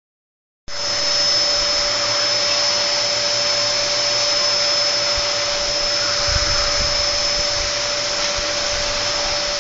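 Vacuum cleaner running steadily with a constant high-pitched motor whine, cutting in just under a second in, with a few low bumps near the middle.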